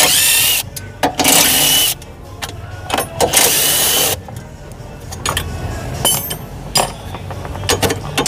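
A power tool run in three short bursts, each under a second or so, a loud hiss with a high whine, with sharp clicks and knocks from work on the vehicle in between.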